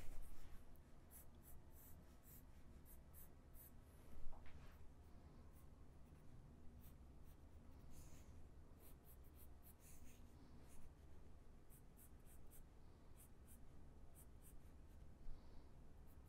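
Faint scratching strokes of a pen sketching on a drawing surface, short and irregular, over a low steady hum.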